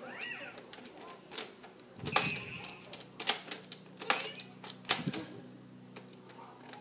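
Hard plastic buttons, bead slider and door on a toddler's Anpanman activity walker panel being pressed and pushed: a string of sharp plastic clicks and clacks, about one a second.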